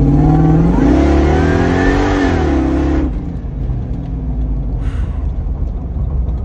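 Supercharged 5.7-litre Toyota Tundra V8 in a 4Runner, heard from inside the cabin, accelerating hard under full throttle: the engine note climbs with a thin rising whine above it for about two and a half seconds, then drops away about three seconds in as the throttle closes, leaving a quieter steady cruising drone.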